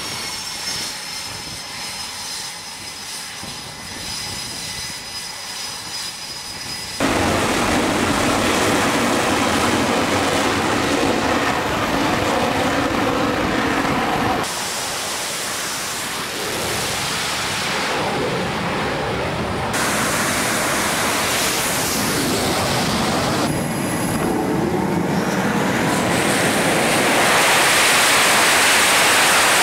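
Aircraft-carrier flight-deck noise in several abrupt cuts. First comes a jet's high steady whine, then a much louder stretch of jet engine noise around a catapult launch. Near the end a twin-turboprop C-2 Greyhound's engines build to the loudest point.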